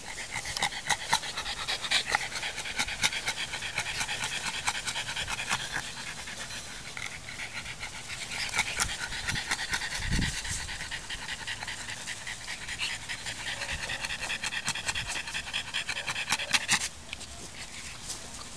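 French bulldog panting rapidly and steadily, stopping about a second and a half before the end.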